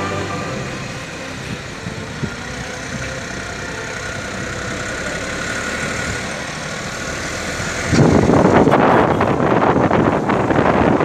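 Motor vehicle running on the road with steady engine noise. About eight seconds in, a sudden loud rush of wind hits the microphone and drowns it out.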